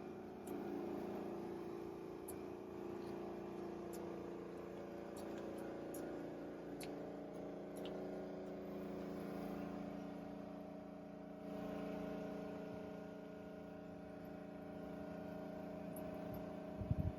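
Electric air compressor running steadily, a low hum with several steady tones; the pitch shifts and it gets a little louder about eleven and a half seconds in.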